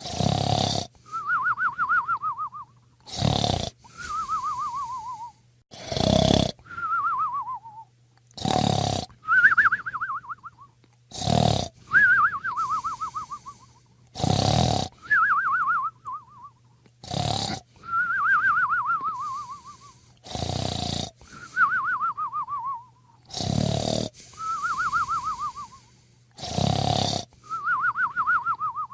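Someone fast asleep snoring loudly and evenly. Each breath is a rasping snore followed by a wavering whistle that falls in pitch, about every three seconds.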